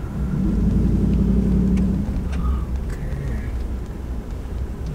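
Truck engine and road rumble heard from inside the cab while driving. The engine note swells for about two seconds, then eases back to a steady low rumble.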